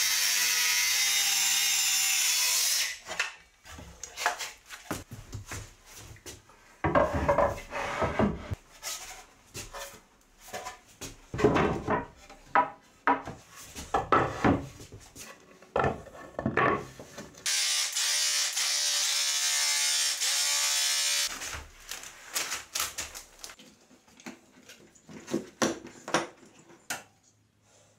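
Cordless circular saw cutting through a thick wooden countertop for about three seconds. This is followed by a string of knocks, taps and clatter from carpentry work. Past the middle a power tool runs steadily for about four seconds.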